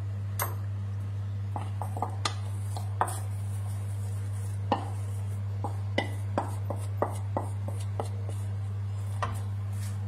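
A serving utensil knocking and scraping against a metal frying pan as rigatoni are scooped out of it, in a dozen or so irregular clicks, over a steady low hum.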